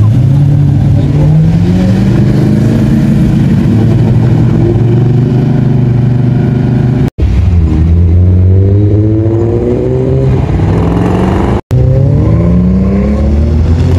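Modified car engines revving and accelerating away one after another, each rising in pitch over a steady deep engine drone. The sound cuts out for an instant twice.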